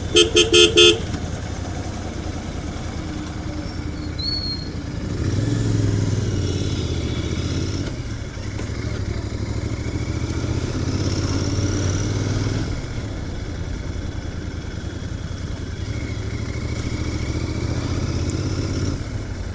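Royal Enfield Continental GT 650's 648 cc parallel-twin engine running through its stock exhaust on the move, its low rumble swelling several times as the throttle opens. A horn beeps four quick times right at the start, the loudest sound.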